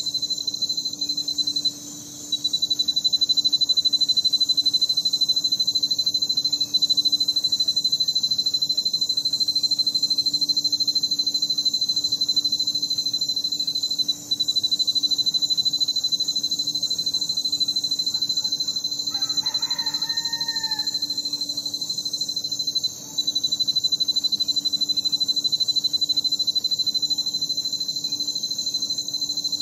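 Night chorus of crickets trilling steadily and shrilly, dropping out briefly three times, over a low steady hum. About two-thirds of the way through, a rooster crows once, faintly.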